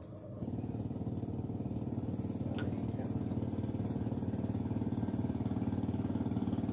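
A small engine running steadily. It starts abruptly about half a second in and slowly grows louder.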